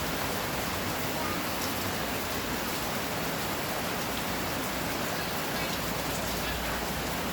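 Steady rain falling, a dense even hiss of rain on surfaces.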